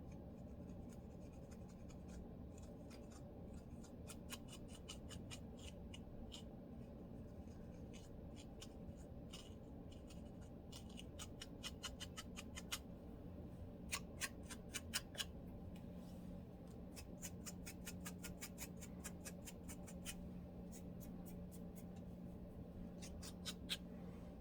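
Lice comb scratching and scraping a dry, flaky scalp: runs of quick, sharp strokes, several a second, with short pauses between runs, over a faint steady hum.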